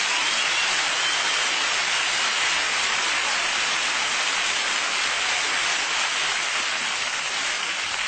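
Studio audience applauding steadily, with a couple of whistles in the first second or two.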